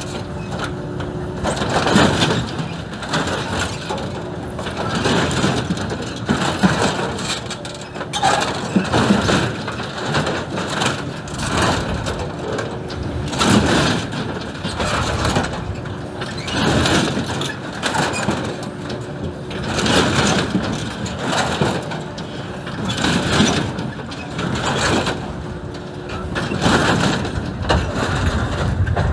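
Excavator's diesel engine running under load while its grab crushes and tears the steel of old farm machinery: repeated, irregular crunching and banging of metal over a steady engine hum.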